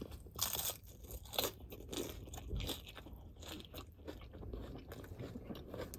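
A person chewing a sub sandwich topped with Doritos tortilla chips: irregular crisp crunches of the chips between the teeth.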